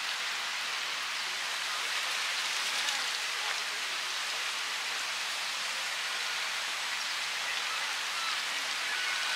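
Steady hiss of a flowing river, moving water with no breaks or changes.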